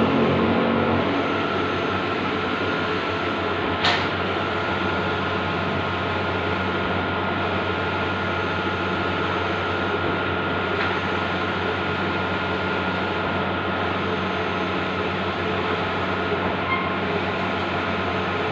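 Bluewin outdoor large-format digital printer running: a steady mechanical hum and whir, with one sharp click about four seconds in.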